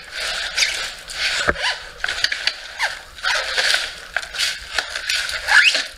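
Plastic wrap and foam packing being handled and pulled about, rustling and crinkling in irregular bursts, with a knock about a second and a half in.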